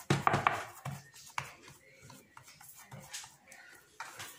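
Hands patting and pressing soft rounds of dough flat on a metal baking tray, with light taps and rubs, loudest just at the start.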